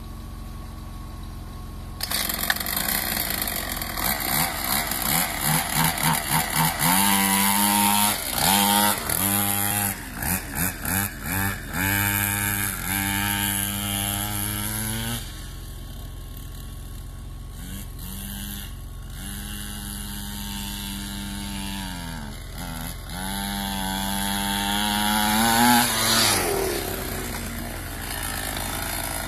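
Small engine of a mini motocross bike revving as it is ridden. It comes in loud about two seconds in, and its pitch climbs and drops again and again, with quick short revs in the middle and longer, steadier pulls later.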